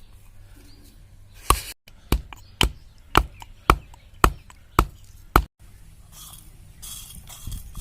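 Turmeric root being crushed on a stone: about eight sharp knocks roughly half a second apart, then a rough scraping as the turmeric starts to be ground.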